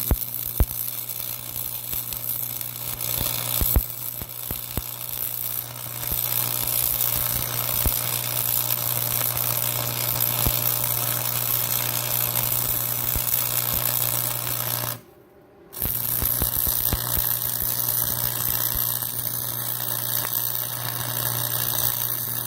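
Stick (arc) welding on steel: the electrode's arc crackles and sizzles steadily over a low electrical hum. The arc breaks off for under a second about fifteen seconds in, then is struck again.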